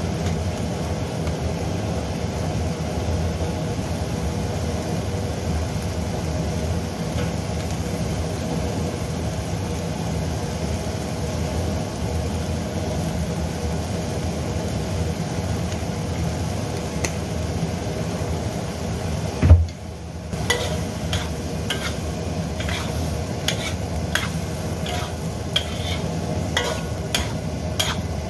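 Minced meat, tomato and onion sizzling in a carbon-steel wok over a steady low hum. About two-thirds of the way through there is one loud knock, and then a metal spatula scrapes and clacks against the wok again and again as the mixture is stirred.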